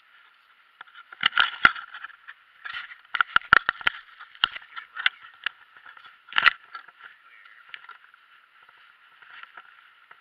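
Footsteps crunching on gravel and dry leaves, with rustling and sharp knocks from a jostled handheld camera; the loudest knocks come about a second and a half in, in a quick cluster around three and a half seconds, and about six and a half seconds in.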